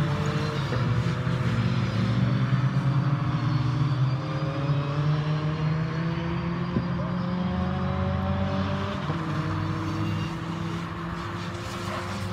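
Fun Cup race cars' engines running on the circuit, several at once, their pitch rising and falling as they go through the corner.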